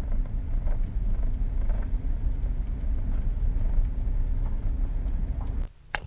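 Car driving on an unpaved road, heard from inside the cabin: a steady low rumble of tyres and engine, which cuts off suddenly near the end.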